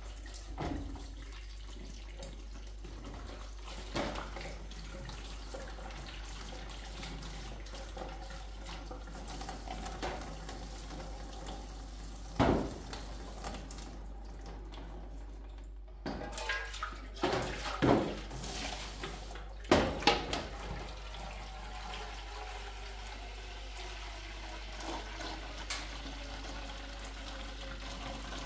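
Water running steadily from a kitchen tap into a stainless steel sink while vegetables are rinsed under it in a plastic basket. There are a few sharp knocks and clatters around the middle, and near the end the stream pours into a steel pot.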